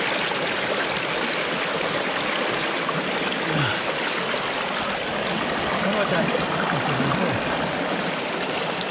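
Steady rush of flowing river water around a gold-prospecting sluice box, unbroken throughout. Faint low voices murmur under it in the middle.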